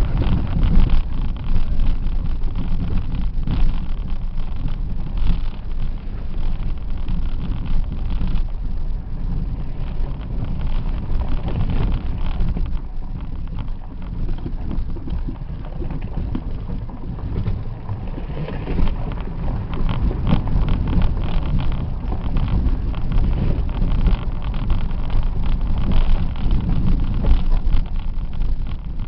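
Off-road vehicle driving over a rough, stony dirt track, heard from inside the cab. There is a continuous low engine and road rumble, with frequent knocks and rattles as the wheels ride over rocks.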